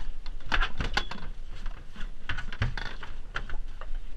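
Irregular clicks and light knocks of a landing net, fish grip and a landed bluefish being handled on a fiberglass boat deck, with a couple of duller thuds about two and a half seconds in.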